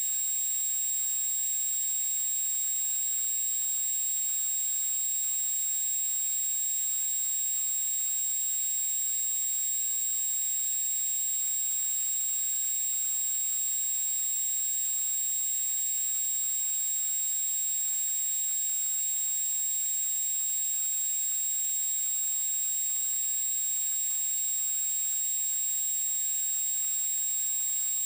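A steady high-pitched electronic whine over a constant hiss, unchanging throughout.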